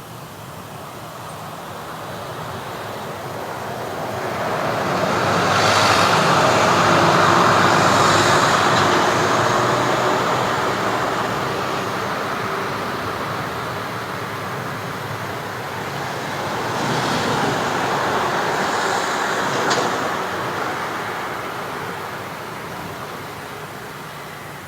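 Street traffic: one vehicle passes by, building up and fading away, followed by a second, quieter pass-by about ten seconds later with a short sharp click near its peak.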